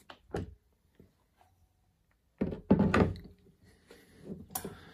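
A Mitutoyo 218-003 rotary vise, a 7 kg metal vise, lifted off a cross travel table and set down with a heavy thunk about two and a half seconds in. Lighter knocks and scraping follow, with another sharp knock near the end.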